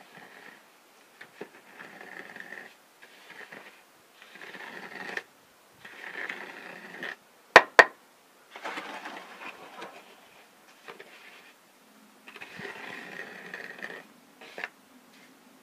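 Hand trowel scraping and smoothing wet concrete in repeated strokes of about a second each, floating the fresh concrete level. About halfway through, two sharp knocks in quick succession are the loudest sounds.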